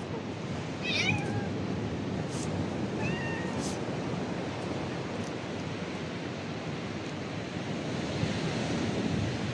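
Cat meowing twice, a longer bending meow about a second in and a short one about three seconds in, over a steady background rush.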